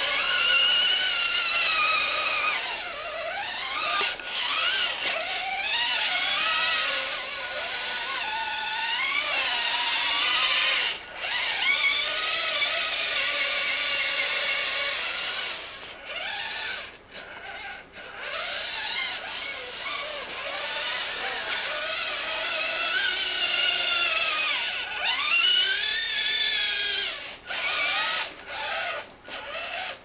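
Electric drive motors of a homemade radio-controlled ride-on toy whining as it drives over carpet. The pitch rises and falls as it speeds up and slows, and it stops briefly a few times.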